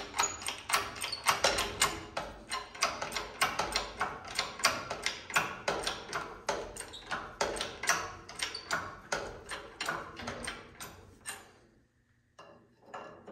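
Engine hoist letting down the rear of a race truck: a steady run of sharp metallic clicks, about three to four a second, that stops near the end.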